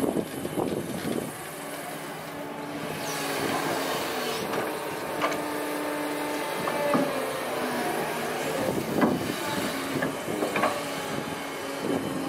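Doosan DX225LCA crawler excavator's diesel engine running steadily under hydraulic load, its note shifting as it digs sand, swings and dumps a load into a truck. Sharp clanks and knocks from the bucket and linkage come several times.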